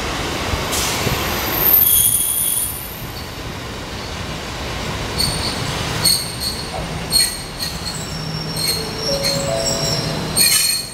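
Kotoden electric commuter train pulling into the platform and slowing to a stop, its wheels and brakes squealing in several high-pitched tones. A short chime sounds near the end.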